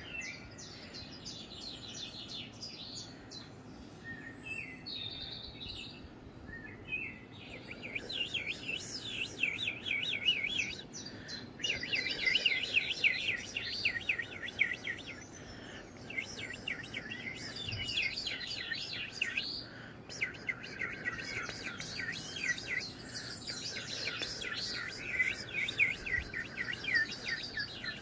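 Birdsong played through a television: rapid, high chirps and trills in phrases of a few seconds with short pauses, sparse and faint at first and fuller from about eight seconds in.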